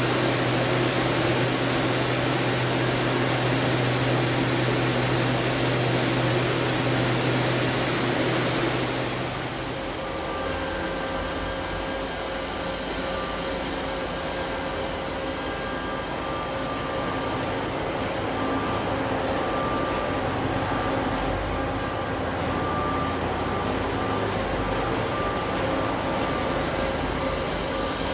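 Doosan Puma 2000SY CNC lathe running under power with its spindle turning: a steady machine whirr over a low hum. About nine seconds in the low hum and rush drop away, leaving a quieter run with several steady high-pitched whines.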